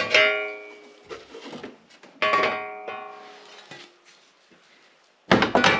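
Metal snowplow mount plate knocking against the UTV's front bumper and frame. It strikes twice, each time with a ringing tone that fades over about a second, then clatters in a quick run of knocks near the end.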